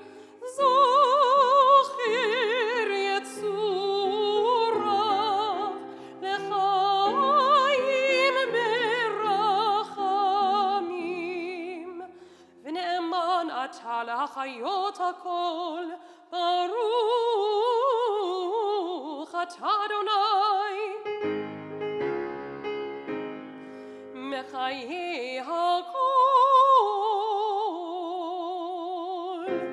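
Cantorial solo: a singer's voice sung with wide vibrato in phrases with short breaks between them, accompanied by piano chords.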